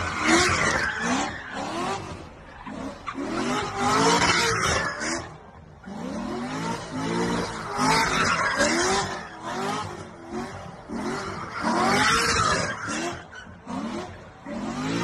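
Chevrolet Corvette V8 revving up and down over and over as its rear tyres squeal and skid through donuts; the engine pitch rises and falls about twice a second.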